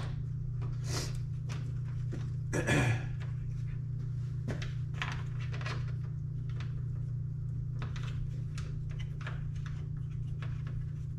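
Plastic trim parts and a wiring harness being handled: scattered light clicks and rustles, with one louder scrape about two and a half seconds in, over a steady low hum.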